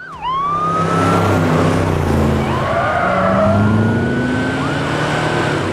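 Emergency-vehicle siren winding up into a long, slowly rising wail over loud engine and road noise of a vehicle being driven fast. The engine note climbs partway through.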